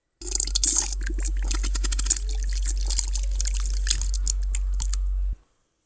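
A long fart sound with rapid crackling pops over a steady low rumble, starting suddenly and cutting off abruptly after about five seconds.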